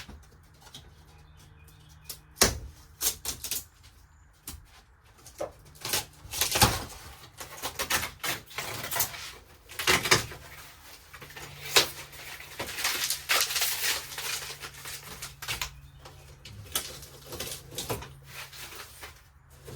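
Old camper wall paneling being pried and broken out by hand: irregular cracking, snapping, knocking and scraping, with sharp loud cracks about two and a half, six and a half, and twelve seconds in.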